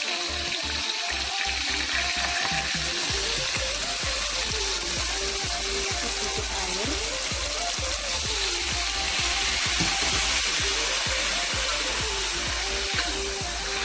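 Chicken wings and sambal chili paste sizzling in hot oil in a wok, with a spatula stirring now and then, over background music with a melody.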